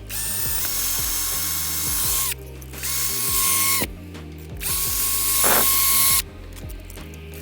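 Power drill running in three bursts, each spinning up and winding down. The first is about two seconds long, a shorter one comes about three seconds in, and a longer one follows, over background music.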